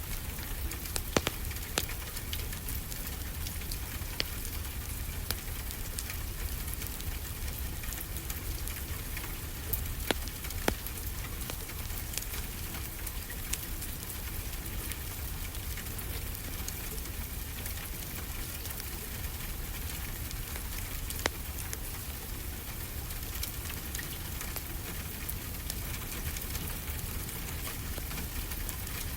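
Steady rain falling together with a fireplace fire crackling, a few sharp pops standing out every few seconds.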